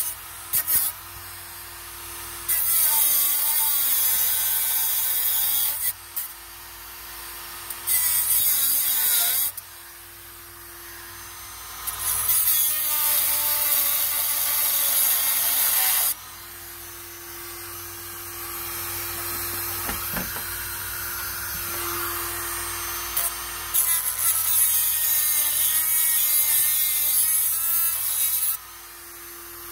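Dremel rotary tool grinding a small metal tab: the motor runs at a steady pitch between passes, and several harsh grinding bursts of a few seconds each drag its pitch down as the bit bites into the metal.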